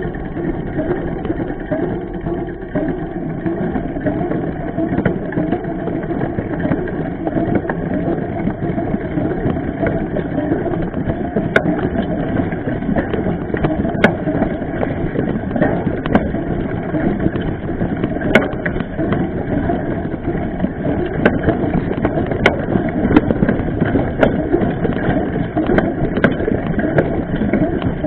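Mountain bike riding a dirt trail, heard from a camera mounted on the bike: a steady rumble and rattle of the knobby tyre and frame, with scattered sharp knocks that come more often in the second half.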